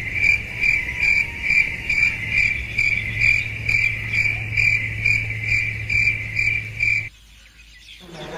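Cricket chirping in an even rhythm, about two chirps a second, over a low hum, cutting off suddenly about a second before the end; it is a dubbed-in cricket sound effect.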